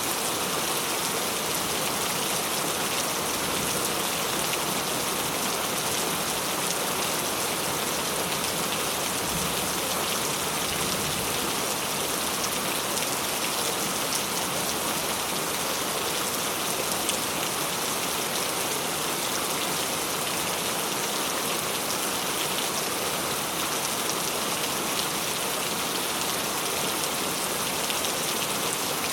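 Steady rain falling, a constant even hiss of many drops that does not let up.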